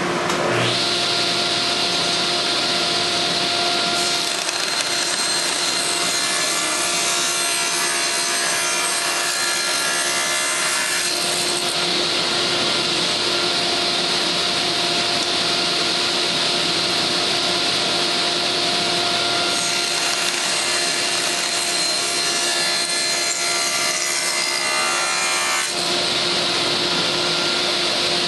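Table saw running with its blade tilted, making two bevel cuts along the edges of a wooden board. The first cut runs from about four to eleven seconds in and the second from about twenty to twenty-six seconds in; between and after them the blade spins free with a steady hum.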